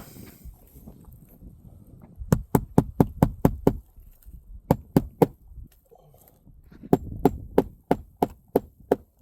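Hammer driving roofing nails into asphalt shingles: quick runs of sharp blows, about eight in a row, then three, then another run of about seven near the end.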